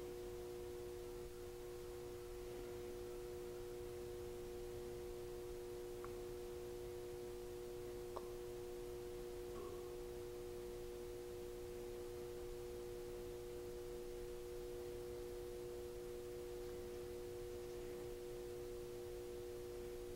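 A faint, steady hum made of two held tones, unchanging throughout, with a faint tick about eight seconds in.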